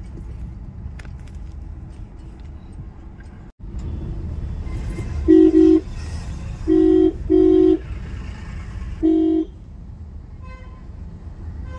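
Vehicle horn sounding four short, loud blasts on one steady tone, the first about five seconds in, over the steady low road rumble inside a moving car's cabin.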